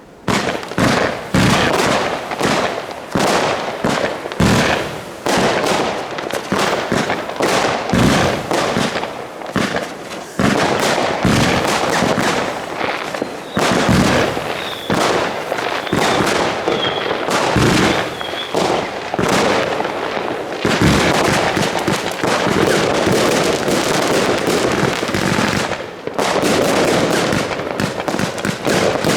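Consumer New Year's fireworks going off in quick succession: many sharp bangs mixed with crackling, a few short whistles around the middle, and a denser stretch of continuous crackling over the last third.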